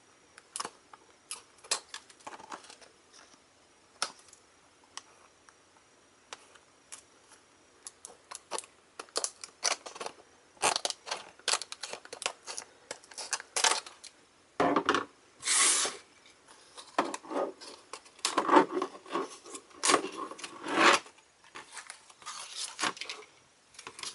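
Scissors cutting through a plastic blister pack: a long run of sharp snips and crackles of the stiff plastic, becoming louder crinkling and scraping of the plastic from about halfway through.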